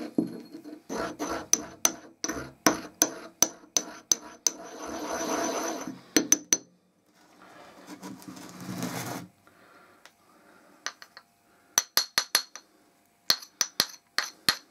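Porcelain pestle grinding blue vitriol (copper sulfate) crystals in a porcelain mortar: a gritty grinding with sharp clicks of the pestle against the bowl, about two to three a second, then a scraping rub a few seconds later. Near the end, clusters of lighter clicks as the mortar is tapped to tip the ground powder out.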